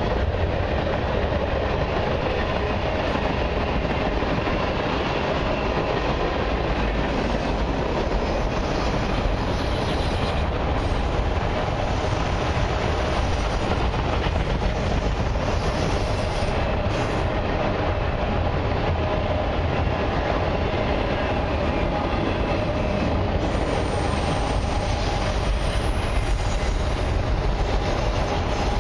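Freight cars of a long mixed and autorack train rolling steadily past: the continuous sound of steel wheels on the rail.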